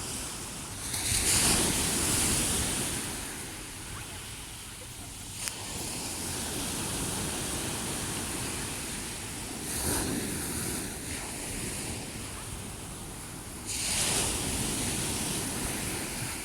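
Mediterranean sea waves breaking and washing up the shore, three waves swelling louder about a second in, about ten seconds in and near the end, with steady surf wash between them.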